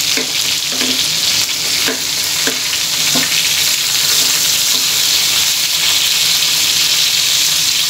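Chicken pieces sizzling in hot oil in a frying pan. A wooden spatula scrapes and knocks a few times in the first few seconds as the pieces are turned over.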